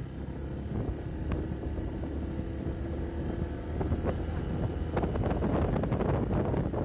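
Motorcycle engine running steadily at cruising speed, with wind buffeting the microphone; the gusts get heavier in the last couple of seconds.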